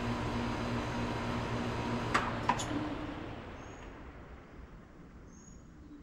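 Bryant Preferred Series 4-ton air conditioner condenser shutting down. Its steady running hum cuts off with two sharp clicks about two seconds in, and the fan's rush then fades away over the next few seconds. Faint bird chirps follow.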